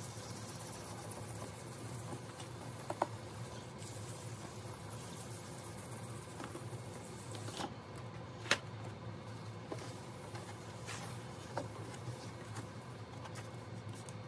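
Hand sanding a plastic lightbar lens with a sanding pad: a steady scrubbing hiss that stops about halfway through, followed by a few light clicks and taps.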